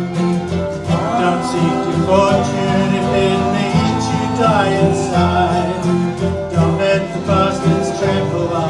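Live folk band playing an instrumental passage in country-bluegrass style, with guitar and bass under a wavering melody line.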